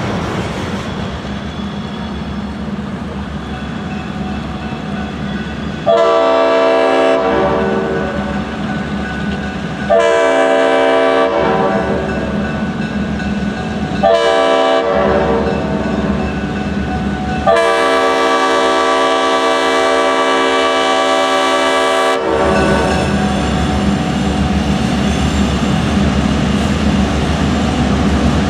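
Leslie RS-5T five-chime air horn on GP11 locomotive 2003 blowing the grade-crossing signal: two long blasts, a short one, then a final long blast of about five seconds. A steady low diesel rumble runs underneath as the locomotives approach.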